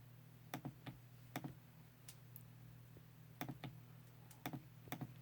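Faint, scattered clicking of a computer keyboard as numbers are typed in: about a dozen keystrokes with uneven gaps, over a low steady hum.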